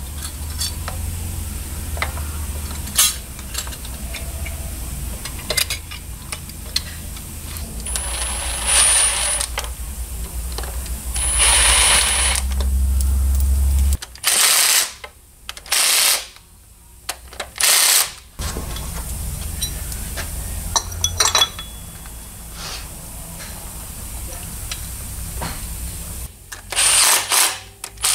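Cordless power tool driving bolts at the front of a V8 engine, running in several short bursts with clicks and clinks of parts and tools between them. A steady low hum underlies the first half.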